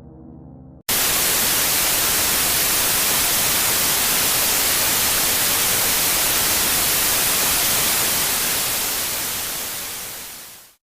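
Low, droning music cuts off abruptly just under a second in and is replaced by loud, steady static hiss: the white noise of a dead broadcast signal after the station signs off. The static fades away over the last two or three seconds.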